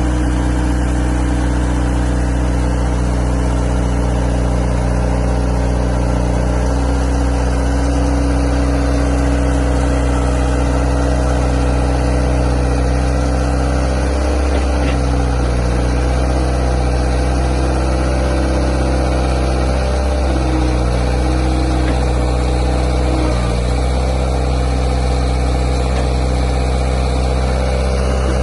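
1994 New Holland skid steer's engine idling steadily, with brief wavers in its note about halfway through and again a few seconds later.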